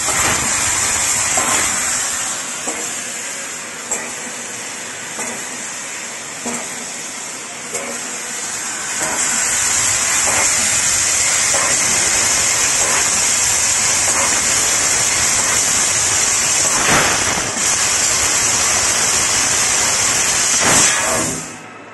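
Leapion T8000 fiber laser tube cutting machine cutting holes in a 1 mm stainless steel round tube. The cutting head's assist-gas jet gives a steady high hiss, with a few brief clicks. The hiss cuts off suddenly just before the end as the cutting stops.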